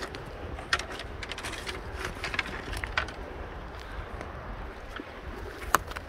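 Footsteps crunching and snapping over dry leaves, twigs and loose stones on a steep slope, irregular, with two sharper snaps about a second in and near the end. A steady low rumble of wind on the microphone runs underneath.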